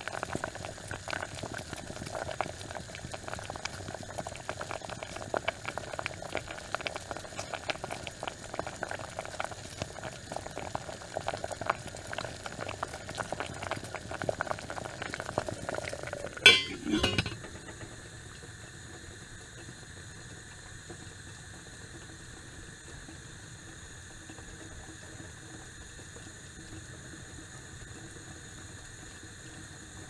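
Pot of water with carrots boiling hard: dense bubbling and popping. A little over halfway through comes a brief loud clink with a falling tone, after which the bubbling gives way to a quieter, steady hiss.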